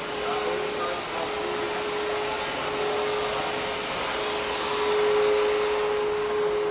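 CNC milling machine running: a steady high whine from the spindle over a vacuum-like hiss.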